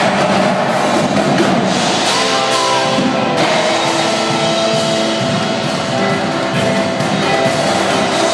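Indoor drumline performing: marching drums played in a dense, driving rhythm, with held pitched notes from the front ensemble entering about two seconds in.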